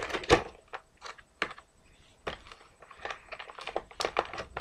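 Irregular light clicks and taps of plastic toy packaging being handled while an action figure is worked free of its twist ties.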